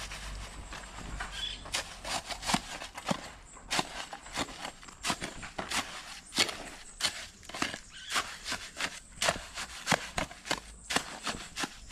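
A steel shovel scraping and chopping through a heap of sand and cement on gravel ground as the mix is turned by hand. The short, sharp strokes come quickly, about two a second.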